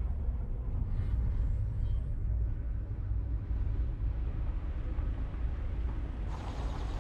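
A steady low rumble, joined about six seconds in by a brighter hiss.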